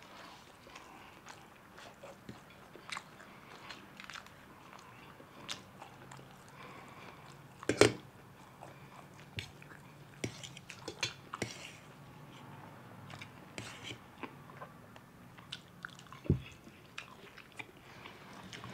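Close-up eating sounds from two people eating chow mein: chewing and mouth noises, with scattered sharp clicks of spoons and forks against steel plates, the loudest about eight seconds in.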